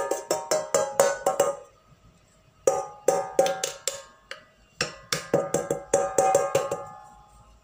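Stainless steel plate knocking and ringing as it is tapped and shaken to spread flour over its greased surface. The taps come in three quick runs of roughly six a second, with short pauses between.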